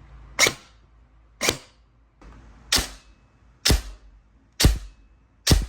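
Double Eagle M906 airsoft electric rifle, upgraded with a brushless T238 motor, 13:1 gears and its stock spring, firing single shots: six sharp shots about one a second.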